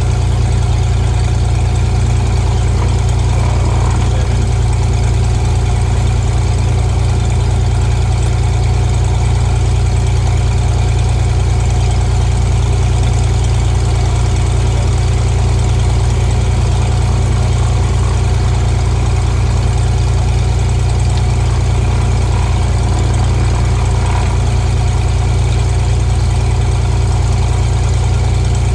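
Single-engine Cessna RG's piston engine and propeller running steadily, a constant low drone with no change in pitch or level.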